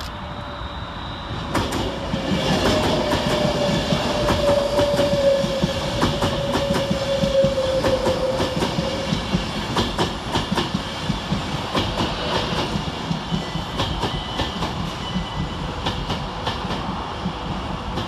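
An electric Class 390 Pendolino passing close by, its wheels clicking over rail joints, while a Class 350 Desiro electric unit draws in. A steady whine falls slowly in pitch through the first half.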